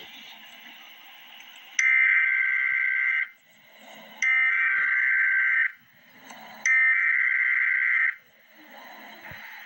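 Emergency Alert System SAME header: three bursts of buzzing digital data tones, each about a second and a half long and about a second apart, with faint noise between them.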